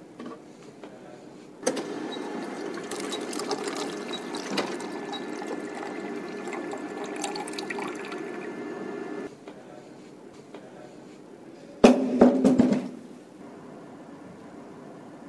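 Cup-drink vending machine running with a steady whir and rush of liquid for about seven and a half seconds, then stopping. About twelve seconds in comes a short, loud clatter.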